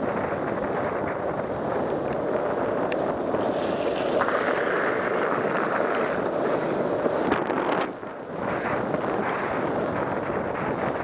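Wind rushing over the microphone of a camera moving at downhill-skating speed, with longboard wheels hissing on wet asphalt underneath; the noise dips briefly about eight seconds in.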